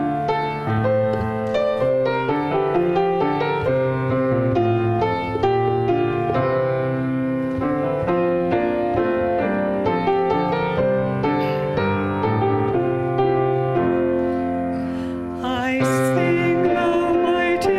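Grand piano playing a hymn introduction in steady chords. A singing voice comes in with the piano near the end.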